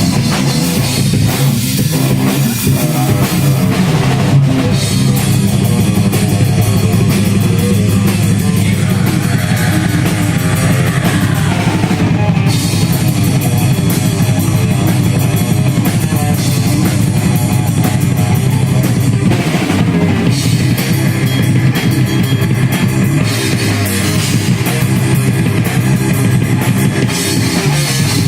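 Live heavy rock band playing loudly: a drum kit with fast, dense hits over guitar and bass.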